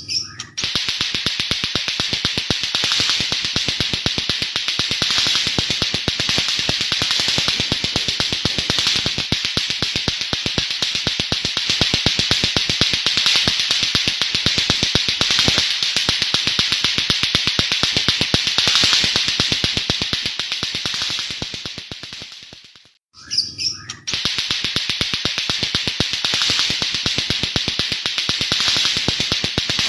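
White-rumped shama (murai batu) singing a harsh, very rapid clicking song that mimics the clacking of lato-lato toys. The stream of clicks breaks off briefly about 23 seconds in, then resumes.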